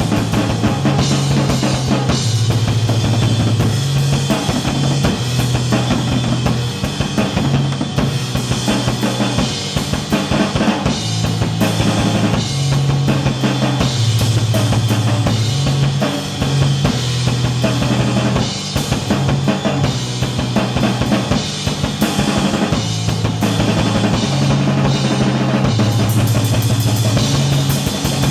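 Loud noise music played live: fast, dense drumming over a low bass figure that steps between two or three notes in a repeating pattern.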